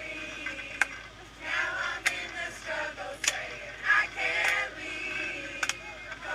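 A group of men and women singing a protest chant together in a crowded subway car, in phrases with short pauses. A sharp hit cuts through about every second or so.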